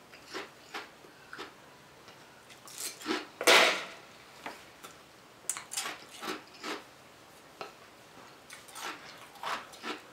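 Ice being crunched and chewed in the mouth close to the microphone: an irregular string of sharp crunches, the loudest and longest about three and a half seconds in.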